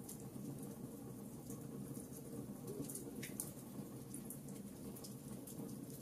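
Logs burning in a fireplace, with irregular small crackles and pops over a steady low rumble of the fire. One sharper pop comes a little past three seconds in.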